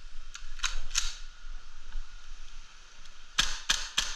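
Novritsch SSQ4 HPA airsoft rifle with bolt recoil firing semi-auto shots, each a sharp snap. Three quick shots come in the first second, and three more near the end.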